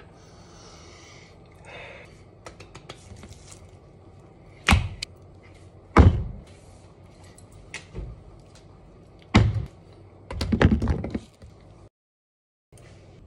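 Kitchen prep knocks on a wooden cutting board: a few single heavy thumps a second or two apart, then a quick run of them near the end, with light clicks and taps between.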